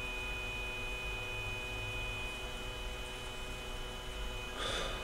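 Steady electrical mains hum with a faint high whine over quiet room tone, and a brief soft rustle near the end.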